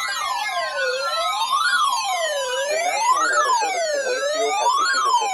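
Electronic wail siren, its pitch sweeping up and down about once every one and a half seconds, with other tones gliding slowly downward over it.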